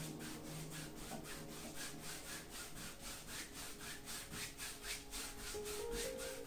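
A wide flat paintbrush scrubbing acrylic paint onto a stretched canvas in quick back-and-forth strokes, a dry bristle rasp repeating evenly several times a second.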